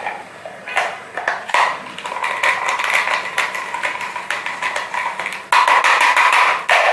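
Hand-cranked rotary cheese grater being turned, grating Parmesan: a rasping run of rapid clicks that gets much louder about five and a half seconds in.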